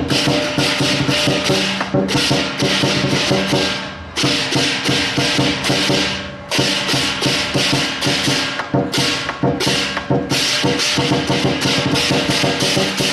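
Chinese lion dance percussion, drum and clashing cymbals, beating continuously in a dense, driving rhythm, with brief lulls about four and six seconds in.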